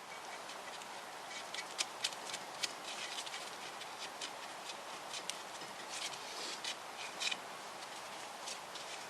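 Light, irregular clicks and taps from hand work with tools and nuts on a cylinder head's studs, over a steady hiss.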